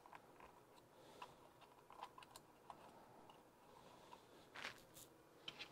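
Near silence with a few faint, scattered clicks and taps from hands tucking wires around the plastic chassis and receiver box of an RC truck.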